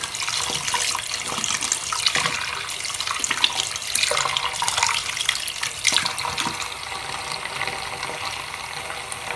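Tap water running steadily into a sink of soapy water, with small splashes as hands rinse small plastic tubes in the suds.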